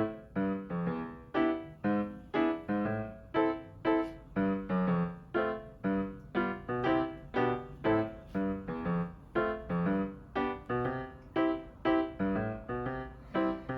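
Background music: light piano or electric-piano notes played in a steady, even rhythm of about three notes a second.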